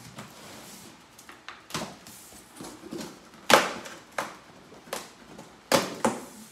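Cardboard box being opened: packing tape slit and stiff cardboard flaps pulled apart, a series of about six short, sharp scraping rasps, the loudest about three and a half seconds in.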